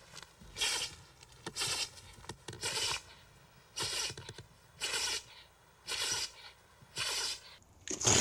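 A pet sneezing over and over, one short burst about once a second.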